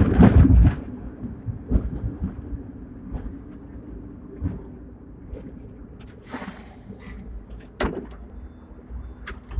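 Hong Kong double-decker electric tram No. 120 heard from inside its lower deck: a loud low rumble for the first half-second or so, then a quieter running noise. Scattered clicks and knocks from the body continue throughout, with a brief hiss past the middle and a sharp knock shortly after.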